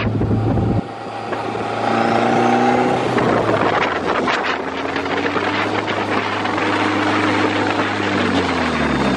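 Nissan SR20 four-cylinder engine in a stripped, caged car, heard on the move from inside the open cockpit with wind on the microphone. The engine pitch rises about two seconds in as it accelerates, holds steady, then falls near the end as it slows.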